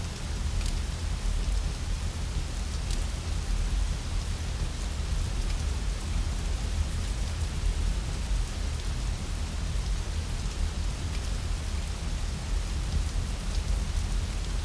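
Steady rain hissing over a continuous low rumble, with a few sharp crackles from a wood fire scattered through it.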